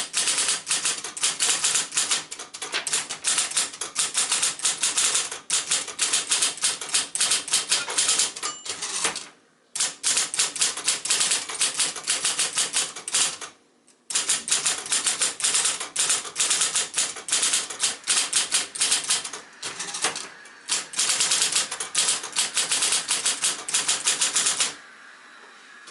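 1972 Royal Apollo 10-GT electric portable typewriter being typed on quickly: a fast run of powered keystrokes striking the page. There are two brief pauses, and the typing stops shortly before the end.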